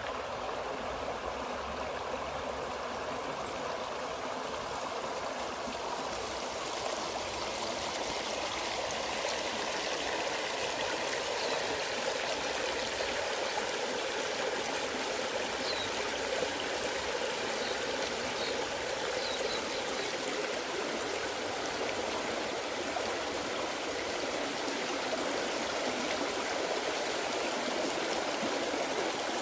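Water of a stream flowing and trickling steadily.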